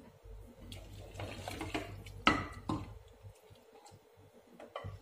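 A ladle stirring rice in water inside a pressure cooker pot, the liquid sloshing, with two sharp knocks a little over two seconds in and a few small clicks near the end.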